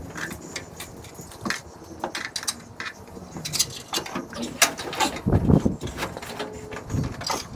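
Irregular clicking and clanking of hand tools on metal, with heavier knocks about five and a half and seven seconds in.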